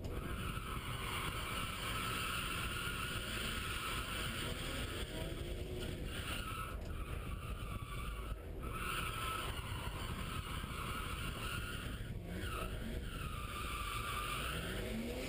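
BMW E36 M3's straight-six engine running hard, heard from inside the cabin, its pitch rising a few times as it is revved. Tyres squeal in long stretches through the slides, with brief breaks between them.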